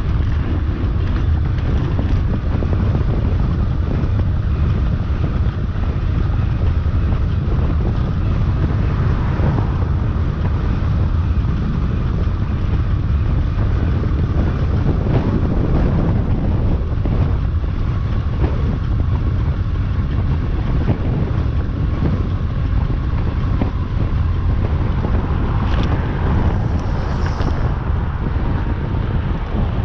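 Strong wind buffeting the microphone during a bike ride: a loud, steady low rumble.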